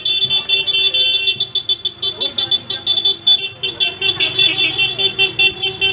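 Motor scooter horns beeping in a rapid run of short toots, several horns at once, with scooter engines running underneath.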